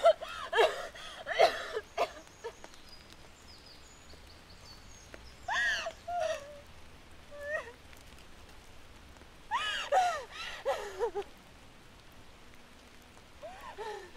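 A young woman sobbing and whimpering in several short, broken bursts of gasping cries. Faint bird chirps can be heard in the quieter gaps between.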